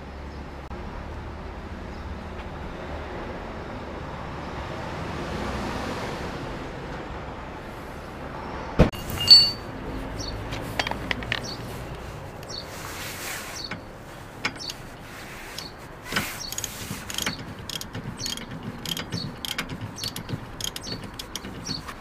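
Steady outdoor background hum, then two sharp knocks about nine seconds in. After that comes a run of short metal clinks and clicks from a socket wrench and steel tow-hitch parts being handled at a car's hitch receiver while the tow ball is being fitted.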